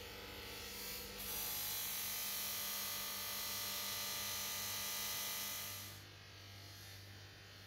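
Electric bench grinder running with a steady hum while a steel knife blade is pressed against its spinning wheel. The blade on the wheel gives a loud, even grinding hiss from about a second in until about six seconds, when it eases back to the quieter motor hum.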